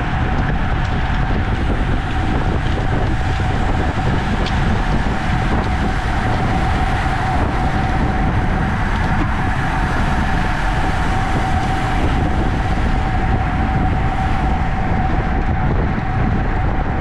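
Steady rush of wind and road noise from a racing bicycle at speed, heavy on the low end, with a thin, steady high hum running through it.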